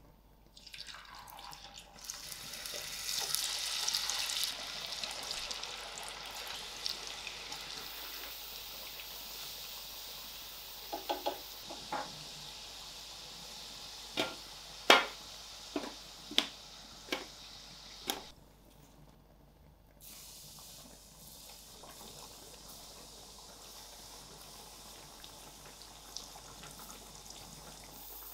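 Hot oil sizzling and bubbling as potato sticks deep-fry in a pan, the sizzle swelling about two seconds in as they go into the oil. Midway comes a run of sharp clicks from the tongs against the metal tray and pan; after a brief lull, battered chicken pieces sizzle steadily in the oil.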